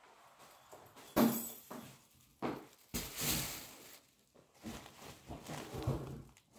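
Someone coming in through an apartment front door: the door shutting, footsteps, and cloth and a bag rustling close to the microphone as a shirt is taken off. A sharp knock about a second in, another about two and a half seconds in, and longer bouts of rustling after each.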